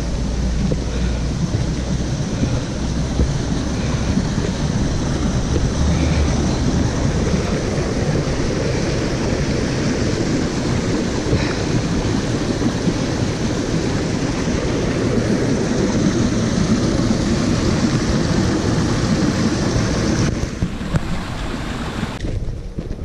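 Stream water rushing and splashing over rocks in small cascades: a steady, loud rush, with wind rumbling on the microphone in the first several seconds. The rush drops off sharply near the end.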